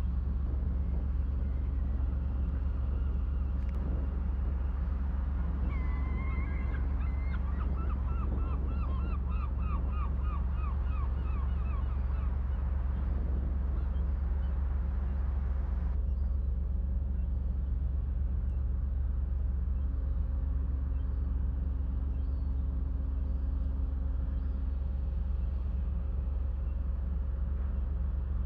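Steady low rumble of a boat's engine. Over it, birds call in quick repeated series through the first half.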